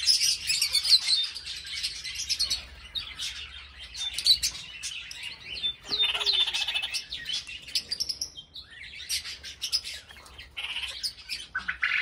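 A flock of small parrots chirping and chattering in an aviary: dense, overlapping high chirps and short calls, briefly thinning about two-thirds of the way through before picking up again.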